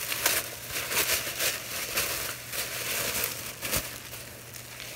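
White tissue paper rustling and crinkling as it is handled and lifted out of a gift package, with many short crackles and one sharper snap a little before the end.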